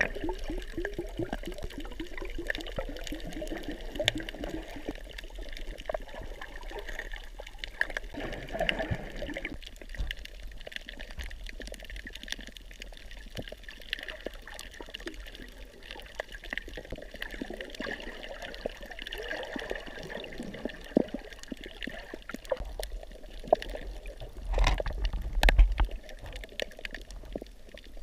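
Underwater sound picked up by a snorkeller's camera: water moving and bubbling around it, with many small clicks and a louder rush of water near the end.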